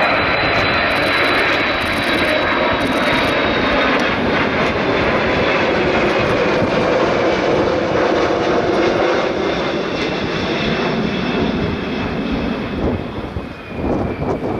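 Military jet engines at full power on departure, a loud steady roar with a high whine that slowly falls in pitch as the jet passes and draws away. The roar dips briefly near the end.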